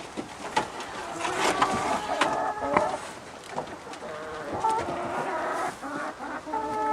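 Chickens clucking and calling, several drawn-out calls overlapping.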